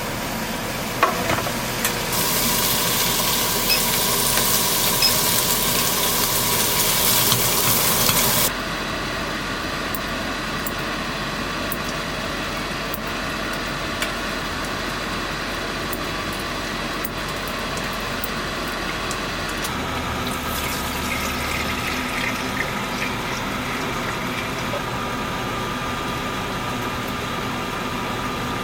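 Food sizzling as it fries in a pan, a steady hiss that is loudest for the first third and drops abruptly, with a few light clicks.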